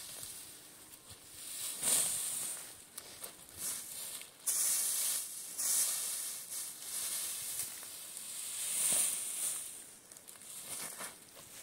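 Dry cut stalks rustling and crackling as they are gathered up by hand in armfuls, in uneven bursts, loudest about two, five and nine seconds in.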